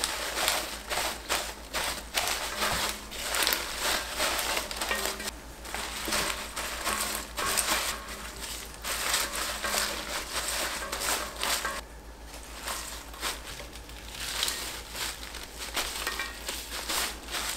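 Gloved hands mixing mustard greens, young-radish greens and green onions through thick red chili seasoning paste in a stainless-steel bowl: irregular wet crunching and rustling of leaves and stalks, with a short lull about twelve seconds in.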